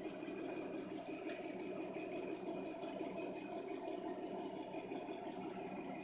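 Rockwell drill press running, a steady motor hum and whir with a few constant tones.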